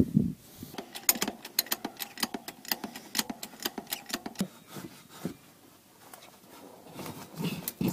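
A fast run of sharp clicks, about five a second, for about three and a half seconds, then a few scattered clicks and a low thump near the end.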